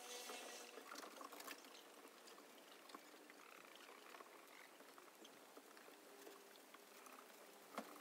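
Near silence: a smouldering pile of dried weeds and stalks hissing faintly, with scattered small crackles and a sharper click near the end.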